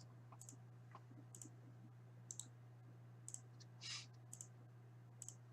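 Faint clicks, about one a second, over a low steady hum.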